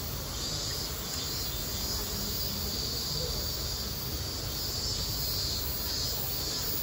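Insects trilling steadily in a high, slightly pulsing band, over a low background rumble.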